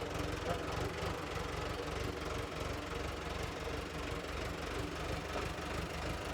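Tractor's diesel engine idling steadily, with a rapid, even low pulse.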